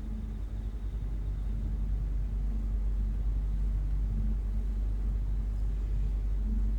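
A low, steady rumble with a hum in it, slowly growing louder.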